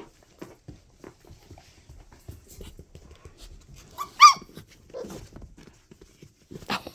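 Five-week-old mini Goldendoodle puppies moving about, with faint scuffling and small ticking sounds, then one short, sharp yip about four seconds in.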